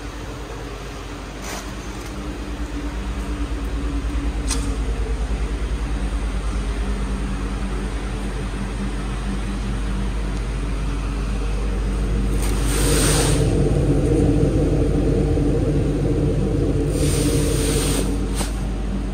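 2004 Ford Thunderbird's 3.9-litre V8 engine running steadily, its tailpipe fed into a shop exhaust-extraction hose. Two brief rushing noises come through, one about two-thirds of the way in and one near the end.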